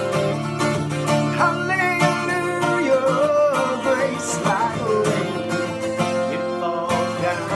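Guitar playing a slow gospel song, sustained chords under a bending melody line.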